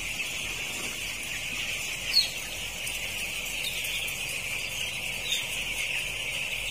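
Steady, dense chorus of peeping from a house full of 12-day-old broiler chicks, with a single louder peep standing out about 2 seconds in.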